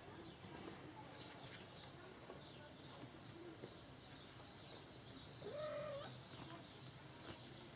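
A kitten gives one short mew about five and a half seconds in, over faint background noise and a few light taps.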